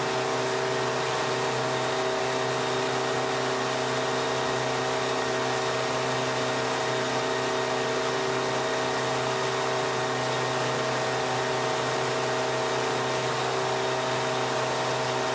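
Boat engine running at a steady drone under way, over the constant rushing hiss of the churning wake behind the stern.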